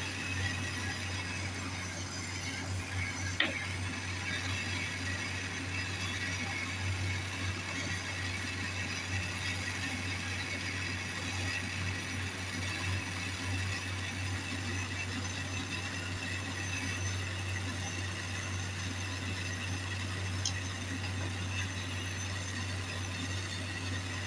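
Steady hiss of a jeweler's soldering torch heating silver, over the constant hum of a ventilation fan, with one sharp click about three seconds in.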